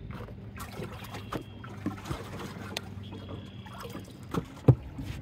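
A boat motor humming steadily, under scattered knocks and clunks, with one loud thump near the end.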